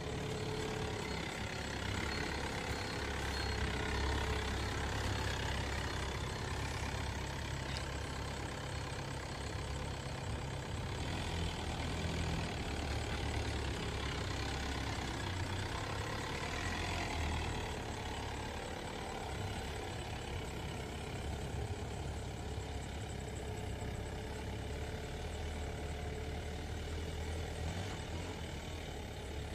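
Diesel engine of an Isuzu Elf 4x4 motorhome running at low speed as the van moves slowly over a rough dirt track; a steady low rumble.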